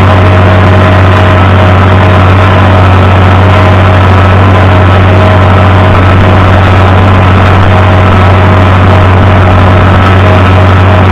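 Tractor engine running steadily at an even speed, with a strong low hum.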